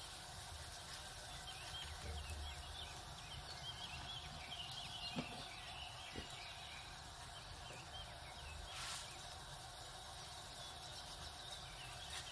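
Faint sizzling and crackling of desi ghee on a paratha on a hot tawa as it is spread over the surface with a spoon.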